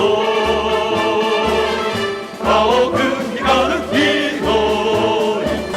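Pachislot machine music: a melody with singing voices over a low bass beat about once a second.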